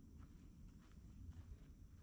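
Faint footsteps of someone walking on a forest trail, a soft step about every half second, over a low steady rumble.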